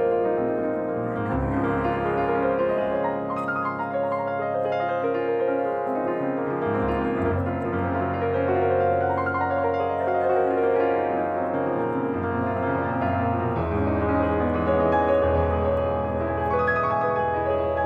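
Background instrumental music led by piano.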